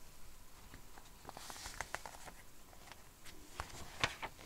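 Paper instruction booklet being handled: a soft rustle of pages and a scatter of light clicks and taps, the sharpest about four seconds in.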